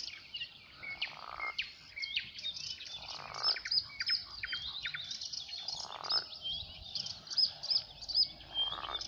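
A frog croaking four times, a short call about every two and a half seconds, while songbirds chirp and sing throughout.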